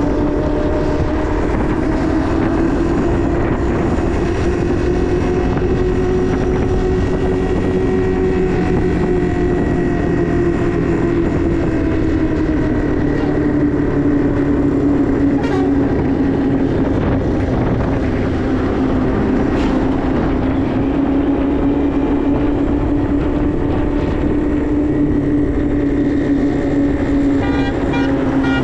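Motorcycle engine running steadily while riding downhill, its pitch drifting slowly up and down with speed, over road and wind noise.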